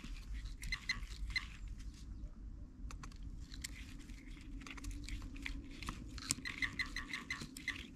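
Metal detector giving faint short repeated beeps as its coil is swept over the dug soil, responding to buried metal under the stone, with the coil brushing dry leaves and soil. The beeps pause briefly after about two seconds, then come faster near the end.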